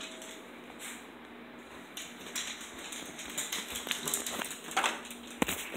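Faint rustling and scattered small clicks from a handheld phone being moved about, with a few sharper clicks near the end, over a low steady hum that stops near the end.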